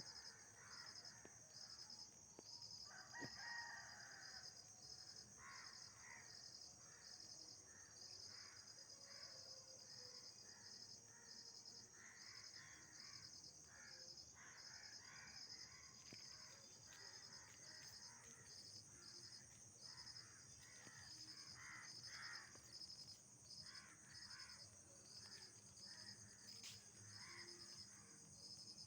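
Night insect chorus: a steady, high, shrill drone with a second insect chirping in an even pulse about one and a half times a second. Irregular short, lower-pitched animal calls come and go throughout.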